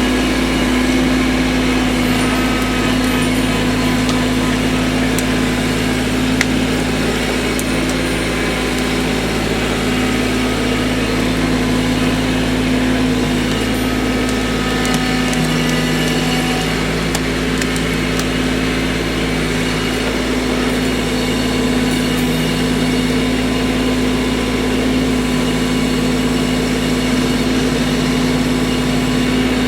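An engine running steadily at an even speed, with a strong constant hum.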